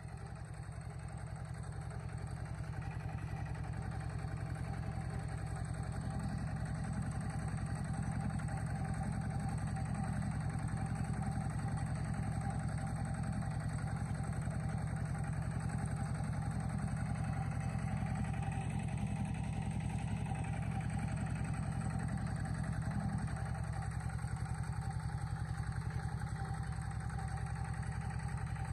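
A vehicle's engine running steadily: a low, even drone that grows a little louder over the first few seconds.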